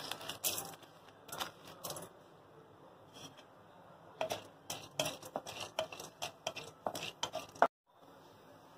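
Split chana dal dropped by hand into a metal kadai, the grains ticking on the pan, then a wooden spatula stirring and scraping the dal around the kadai in a run of quick clicks from about four seconds in.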